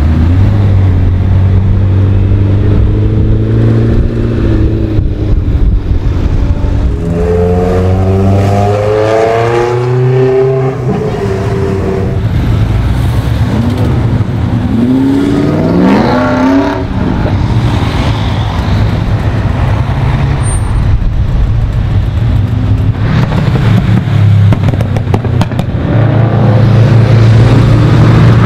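Sports car engines driving past one after another, among them a McLaren and a De Tomaso Pantera V8, with two spells of rising revs as cars accelerate away.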